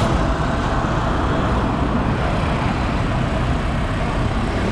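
Steady noise of a running truck engine mixed with road traffic, with no sudden events.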